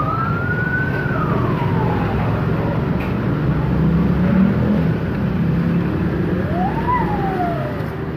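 A siren wailing in slow rises and falls of pitch, once peaking about a second in and again near the end, over a steady low rumble.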